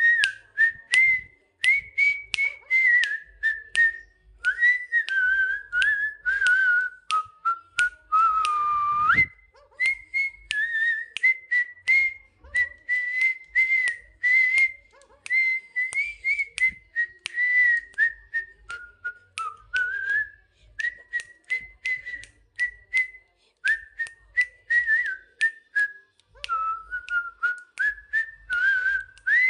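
A wavering whistled tune held almost without a break, with a lower held note about eight seconds in, and many sharp clicks scattered through it.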